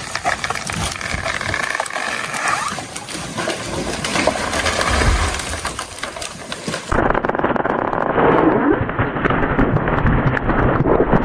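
A felled tree coming down: branches cracking and snapping, with a heavy low thud about five seconds in as the trunk hits the ground. Just before seven seconds the sound changes abruptly to a rumbling, crackling noise.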